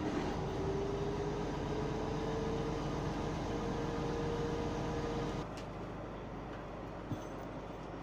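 A fishing launch's inboard engine running, a steady rumble with a whine that rises slightly in pitch, then drops to a quieter, lower level about five seconds in.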